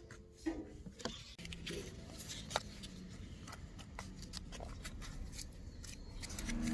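Scattered small clicks and crackles over a quiet low hiss, from the campfire cooking at hand.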